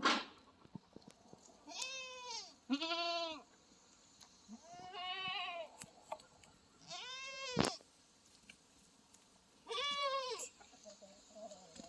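Goats bleating: five separate calls in turn, each rising then falling in pitch, some lower and some higher. There is a sharp click right at the start and another about three-quarters of the way through.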